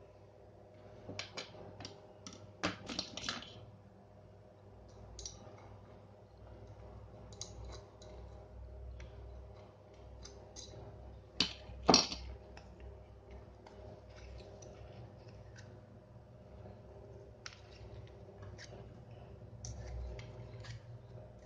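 Scattered clicks and taps of small hard plastic parts being handled, most likely an aquarium water pump's housing and impeller taken apart, with one sharp knock about halfway through, over a faint steady hum.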